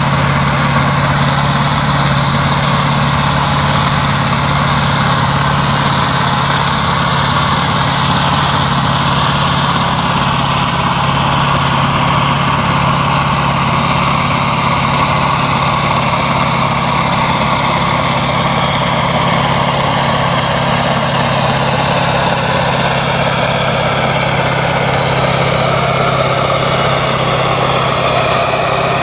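Kirovets K-700-class tractor's diesel engine running steadily under heavy load as it drags a brake sled, with a high whine that slowly drops in pitch.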